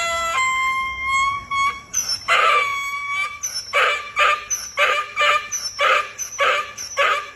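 A dog howling with a long, high held call, then a run of short, high yips about two a second.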